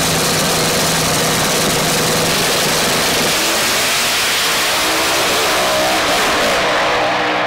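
Drag race cars running at wide-open throttle down the strip: a loud, steady engine blare.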